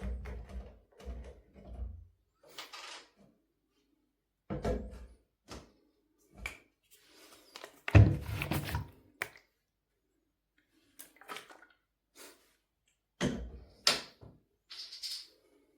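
A series of separate thumps and knocks with silent gaps between, the loudest about eight seconds in.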